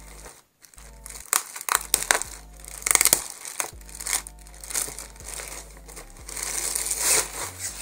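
Clear plastic packaging bag crinkling and rustling in irregular bursts as it is handled and opened around a new backpack.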